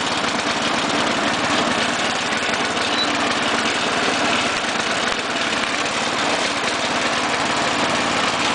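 Simplicity Regent lawn tractor's engine running steadily while the tractor is driven across the grass.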